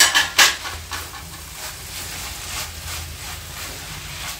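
Spatula stirring and scraping a chicken-and-cabbage filling in a nonstick frying pan, with two sharp clacks near the start and softer scrapes after, over a light sizzle.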